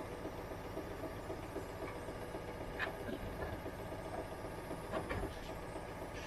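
Zanussi IZ 16 S front-loading washing machine running mid-cycle: the drum turning with a steady fast rhythmic churning from its motor, and a couple of louder knocks or sloshes about three and five seconds in.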